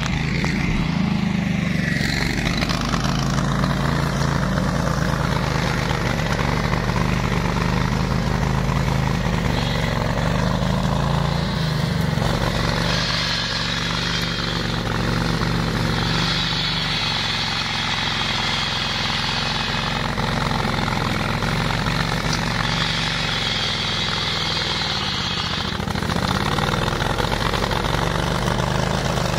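18 hp engine of a ride-on flail mower running steadily, with a hiss that comes and goes over it. The engine pitch dips briefly near the end.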